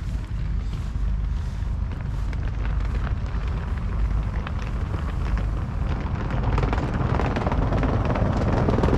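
An engine running steadily with a low rumble, mixed with rough wind and handling noise on the microphone that gets louder near the end.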